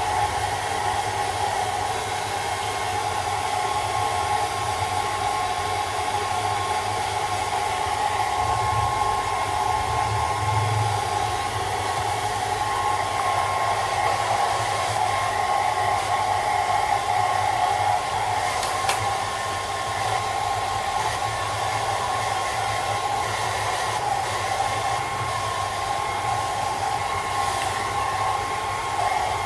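Handheld hairdryer running steadily, a constant whine over the rush of blown air.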